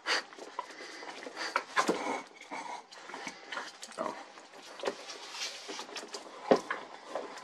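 Grizzly pattern maker's vise being handled and worked: scattered clicks and light metal knocks, the loudest about six and a half seconds in.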